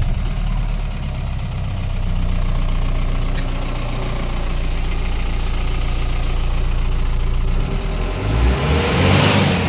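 Mahindra Bolero ZLX's four-cylinder diesel engine idling steadily just after starting, with a diesel clatter. It is running again now that the faulty immobiliser has been replaced and reprogrammed. It gets a little louder and rougher near the end.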